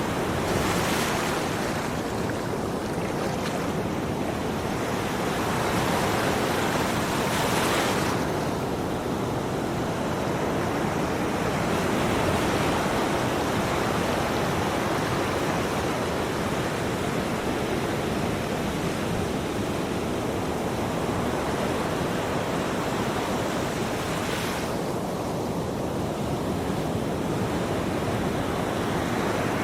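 Ocean waves breaking and washing on a shore, a steady surf hiss with a few brighter swells as waves crash, near the start, about a quarter of the way in and again late on.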